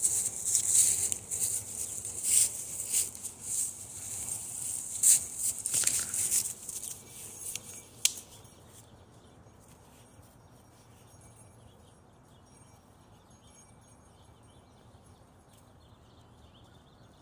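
Dry fallen leaves rustling and crackling in irregular bursts as a dog scrambles about with a stick in them, with a sharp click about eight seconds in. After that only a faint hiss remains.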